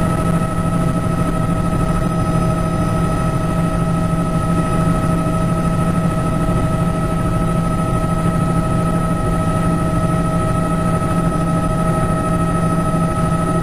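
Helicopter in flight, heard from on board: a steady, unchanging engine and rotor drone, with a few held tones over a rushing noise.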